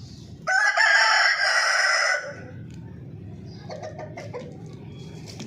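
A rooster crowing once: a single loud cock-a-doodle-doo of under two seconds, starting about half a second in.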